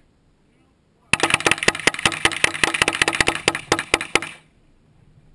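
Two handguns fired rapidly together: a fast, overlapping string of roughly two dozen sharp shots starting about a second in and stopping about three seconds later.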